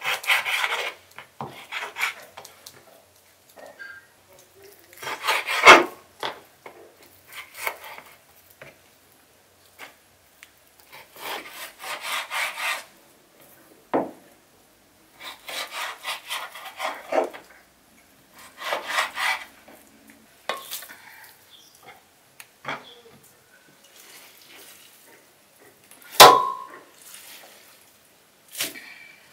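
Kitchen knife sawing through raw beef on a wooden cutting board, in bursts of rasping strokes with short pauses between, and a few sharp knocks of the blade on the board. Near the end comes a single loud clank with a brief ring.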